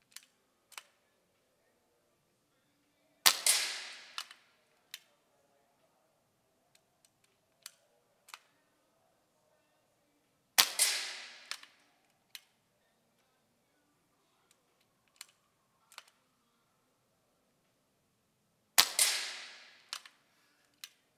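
BSA R10 Gold Star SE .177 pre-charged pneumatic air rifle firing three shots about seven to eight seconds apart, each a sharp report that tails off over about a second. Smaller clicks come between the shots.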